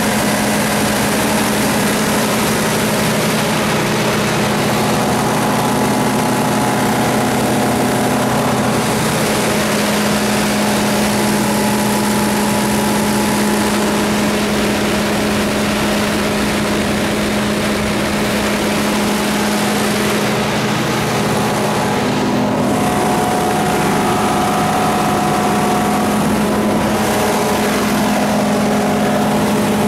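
Mitsubishi 4D34-T four-cylinder turbo diesel of a Generac 60 kW standby generator running steadily with no load, a constant engine hum.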